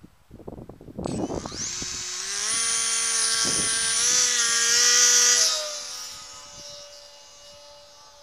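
RC plane's electric motor and propeller, heard from an onboard camera: after about a second of wind buffeting on the microphone, the motor whine rises as the throttle opens, holds high and steady, then drops away after about five seconds and fades out as the throttle is cut.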